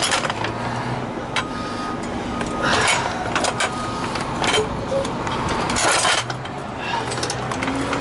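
Steel tripod pipe vise stand being handled and loaded into a work van: several separate metallic knocks and clanks over a background of street noise.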